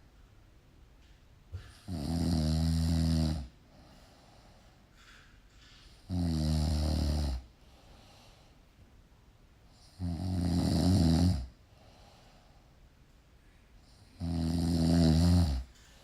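Snoring: four long snores, about four seconds apart.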